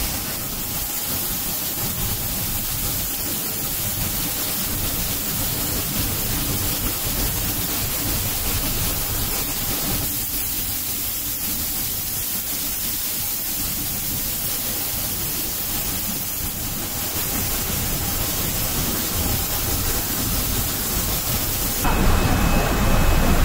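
Automatic leather spray-finishing machine running: a steady hiss from the spray guns and booth machinery. Near the end it changes abruptly to a louder, lower machine noise with a faint high steady tone.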